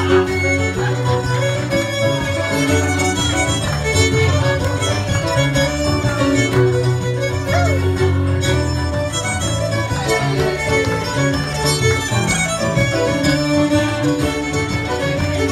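Cape Breton fiddle tune played live on fiddles with keyboard accompaniment keeping a steady, driving beat.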